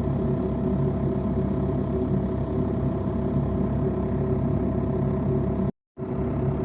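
Vehicle engine running with a steady, even drone; the sound drops out completely for a moment about six seconds in.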